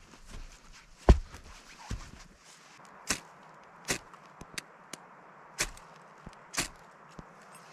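A series of about ten sharp knocks and cracks at irregular intervals, the loudest about a second in and the rest lighter, coming every half second to a second.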